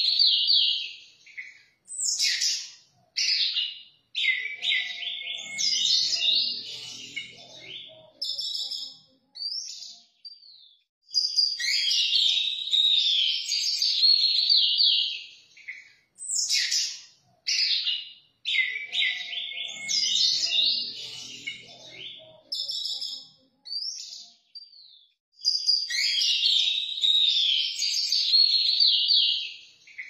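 Caged orange-headed thrush singing long, varied phrases of rapid whistles, trills and chirps, broken by short pauses.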